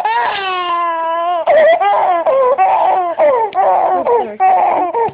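Baby crying: a long wail that falls in pitch, then a run of short, choppy sobbing cries about every half second.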